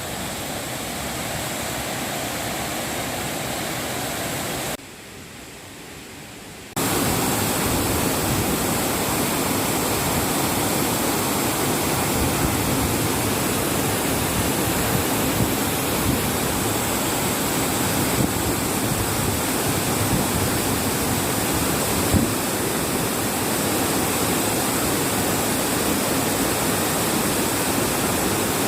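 Steady rushing of a waterfall. It drops quieter for about two seconds around five seconds in, then comes back louder at a sudden step.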